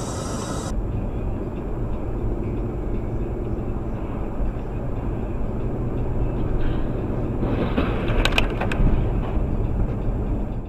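Steady low rumble of a car driving, engine and road noise heard from inside the cabin, with a few sharp clicks about eight seconds in.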